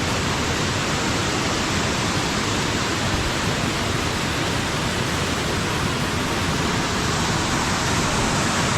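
A high waterfall in full spring flow, its falling water making a loud, steady rush with no let-up.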